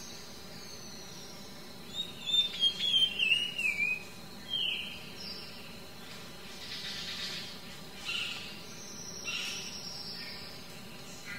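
Small birds singing. A loud warbling phrase comes about two to four seconds in, followed by scattered short chirps and falling whistles.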